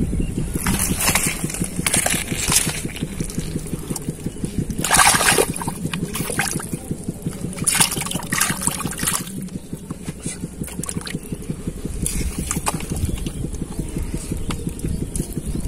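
Hand squelching and sloshing through wet mud and muddy water in a dug hole, in short irregular splashes, over a steady low rumble.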